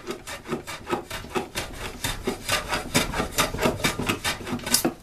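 Hand plane shaving the corner of a wooden edge in many short, quick strokes, several a second, rounding it over. It is worked from the opposite direction so as not to tear out the end grain.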